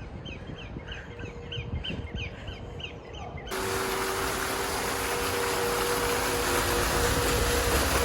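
Birds chirping in a quick repeated series of short calls. About three and a half seconds in the sound cuts abruptly to a louder, steady rushing noise with a faint steady hum under it.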